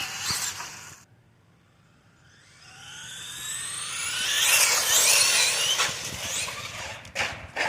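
Traxxas Sledge RC monster truck's electric motor whining higher and higher as it accelerates hard on asphalt, with tyre noise. It is loudest around the middle, then fades, and a few sharp knocks come near the end.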